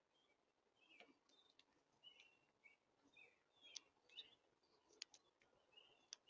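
Faint chirps of small songbirds, short calls coming every half second or so, with a few sharp clicks among them.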